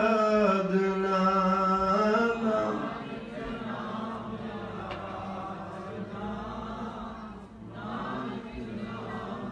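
A man chants a line of Gurbani solo, holding it for about two and a half seconds, then the congregation chants the response together in unison, softer and less distinct.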